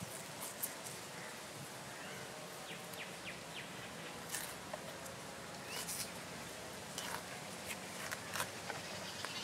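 Outdoor ambience: a steady insect hiss with birds chirping briefly now and then, and scattered small clicks and ticks throughout.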